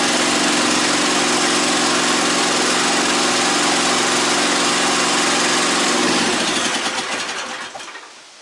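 Hydraulic power unit of a homemade firewood processor, its motor and pump running steadily, then switched off about six seconds in and spinning down over about two seconds.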